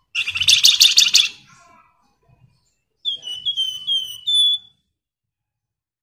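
Caged flamboyan songbird singing: a loud, harsh phrase of rapid notes about a second long, then after a pause a run of about five short, clear whistled notes, each slurring downward.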